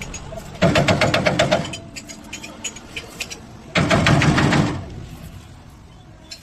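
A mechanical engine or motor running in two short bursts of about a second each, each a rapid run of even pulses.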